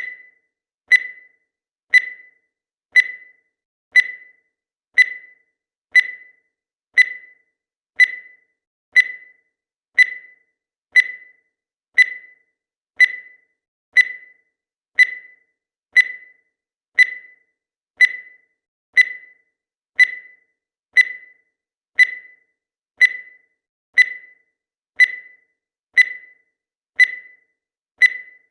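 Countdown timer sound effect: a short, high electronic beep once every second, each starting sharply and dying away quickly, in an even steady rhythm.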